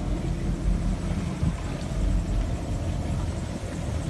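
Steady low rumble of a 2008 Chaparral 264 Sunesta deck boat's engine running with the boat on the water.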